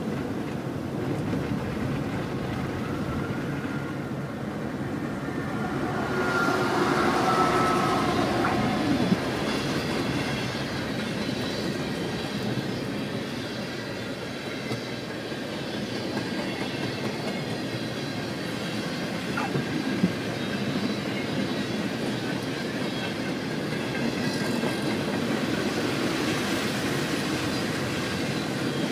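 Canadian Pacific freight train of tank cars rolling past with steady wheel and rail clatter, heard from inside a car driving alongside. A faint high tone sounds from about six to eight seconds in, and there are two sharp clicks, about nine and twenty seconds in.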